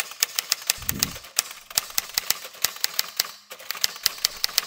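Typewriter key-clicks as a typing sound effect: rapid, irregular clicks with a low thud about a second in and a short pause a little after three seconds.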